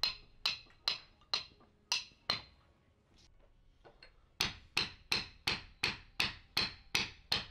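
Slotted wooden caulking mallet striking a caulking iron with sharp, ringing blows: six at an even pace, a pause of about two seconds, then a faster run of nine, about three a second.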